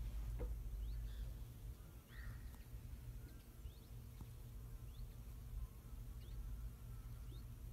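A faint, low, steady hum with a thin steady whine above it from the yacht's electric drive motoring slowly. Over it come short, high, rising bird chirps, about one a second.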